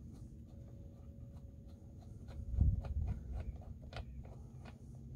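Bar nuts being unscrewed from a Stihl chainsaw's side cover: scattered small metal clicks and scrapes, with a low bump about two and a half seconds in.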